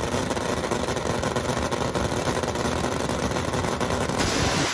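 Nitro-burning Top Fuel drag motorcycle engines running at the starting line with a steady, rough drone. About four seconds in the sound turns suddenly harsher.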